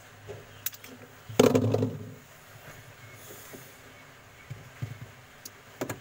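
Hands handling fridge wiring and a plastic connector while fitting an insulating sleeve over a wire joint. A few small clicks, one louder clatter about a second and a half in, and a low steady hum underneath.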